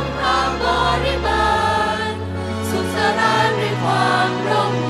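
Mixed choir of teenage boys and girls singing in harmony, with long held notes that shift to new chords about every second and a half.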